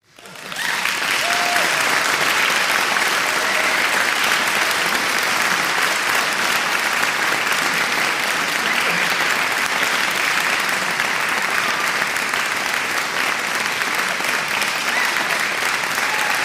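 Crowd applause, a large audience clapping steadily, fading in over about half a second and holding at a constant level, with a few faint voices mixed in.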